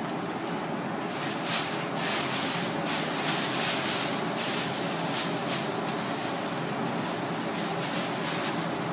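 Knife cutting along the bones of a razorfish being filleted, a run of short scraping strokes over a steady noisy background hum.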